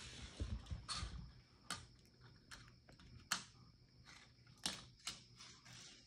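Plastic coil spring toy batted by a cat, clicking and skittering on a hardwood floor: about half a dozen sharp, irregular clicks. A dull low rumble sits under the first second or so.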